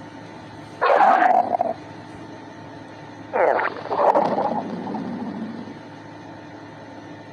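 Stomach growling: a short growl about a second in, then a longer, gurgling rumble from about three and a half seconds that trails away.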